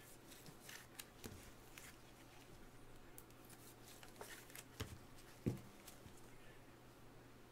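Faint handling noise of gloved hands working trading cards into a rigid plastic toploader: soft rustles and a few light clicks and taps, the loudest about five and a half seconds in, over a low steady hum.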